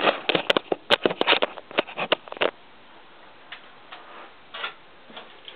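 Handling noise: a quick run of sharp clicks and rattles as the camera and the plastic K'nex gun are moved about. It dies away about two and a half seconds in, leaving quiet room tone with a few soft clicks.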